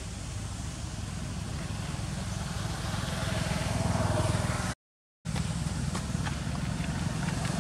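Steady low rumble of a motor vehicle engine running, growing louder toward the middle. All sound drops out for about half a second, roughly five seconds in.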